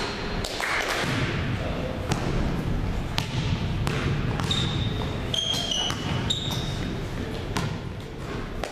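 Basketballs bouncing and thudding on a hardwood gym floor, with a few short sneaker squeaks about halfway through.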